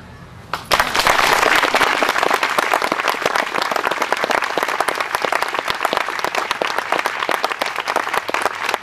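Audience applauding, a steady burst of many hands clapping that starts suddenly under a second in.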